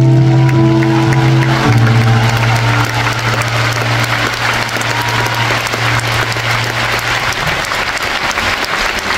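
A large audience applauding as the final held chords of the song die away. The chords stop about seven and a half seconds in, leaving the applause alone.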